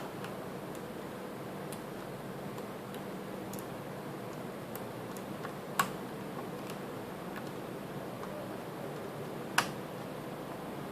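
Small clicks and taps of laptop parts and tools being handled during reassembly, with two sharper clicks about six and nine and a half seconds in, over a steady low hum and hiss.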